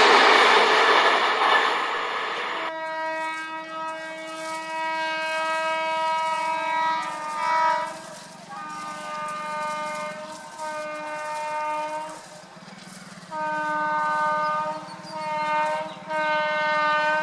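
A train running with a loud, even rushing noise, which gives way suddenly about three seconds in to a train horn: one long steady blast, then a run of shorter blasts with brief gaps between them.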